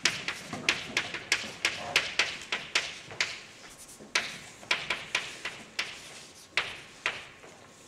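Chalk writing on a blackboard: an irregular run of sharp taps and short scratchy strokes as letters are written, with a short pause about halfway and sparser strokes near the end.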